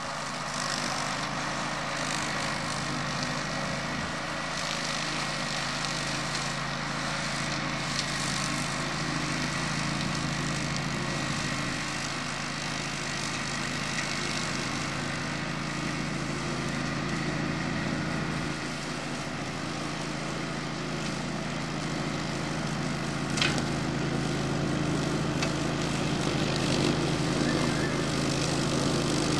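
Grillo Climber ride-on mower's engine running steadily at working speed while it cuts long grass on a steep slope. It grows louder near the end as the mower comes closer. A single sharp tick sounds about three-quarters of the way through.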